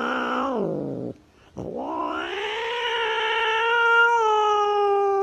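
Tabby cat yowling a defensive warning: a short falling yowl, then after a brief break one long drawn-out yowl that rises and holds steady.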